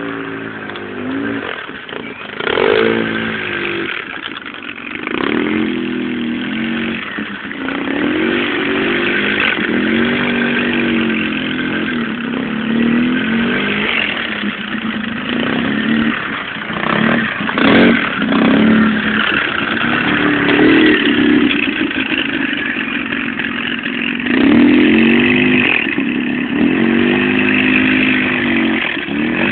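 Polaris RZR 800 side-by-side's twin-cylinder engine revving up and down over and over as it is driven hard off-road, with a few thumps and knocks from the machine about two seconds in and again around seventeen to eighteen seconds.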